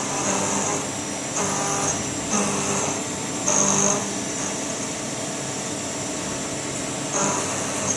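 CNC machining center running, with a steady high whine. It swells louder in five short stretches, about half a second each, four of them in the first four seconds and one near the end.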